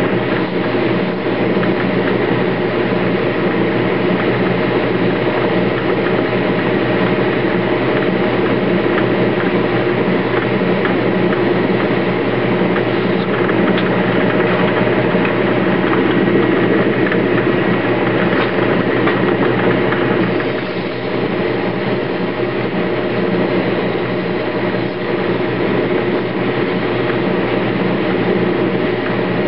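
Old metal lathe running steadily under power, its motor and gear train giving a constant whine and hum as a bushing blank turns in the chuck.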